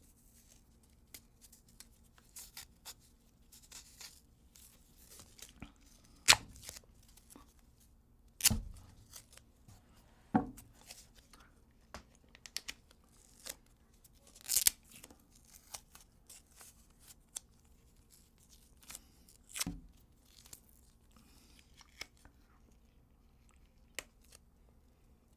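Medical tape being pulled and torn: a handful of sharp rips at irregular intervals, one longer drawn-out rip about two-thirds of the way through, with faint crinkling of the tape between them.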